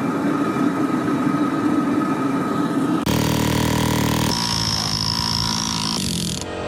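Steady machine noise with a low hum. About three seconds in it switches abruptly to a different machine sound, with a high whine joining partway through.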